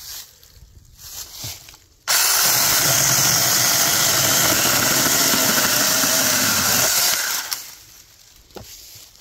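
Battery-powered Tomyvic 6-inch mini chainsaw switched on abruptly about two seconds in and run steadily for about five seconds, cutting into a small log, then released and winding down. Rustling in dry leaves before and after, with a sharp click near the end.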